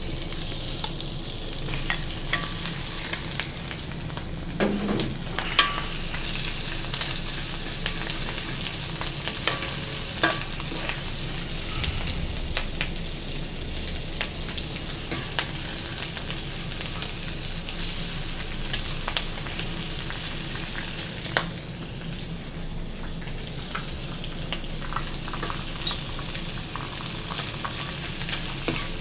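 Chicken pieces sizzling in hot oil with onion, garlic and ginger in a thick kadai (wok), with a steady hiss. A metal spatula stirs and scrapes the pan, giving scattered clicks and scrapes.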